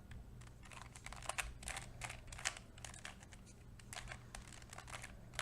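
Faces of a plastic 2x2 Rubik's cube (pocket cube) being turned by hand: a quick, irregular run of faint clicks and clacks.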